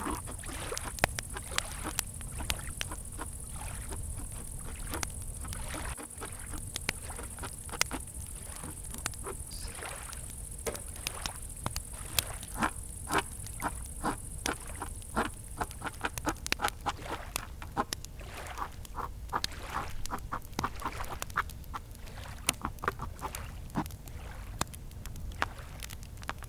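Campfire crackling with many irregular sharp pops, over a steady high-pitched cricket chorus that stops about two-thirds of the way through. Gentle lake water laps softly underneath.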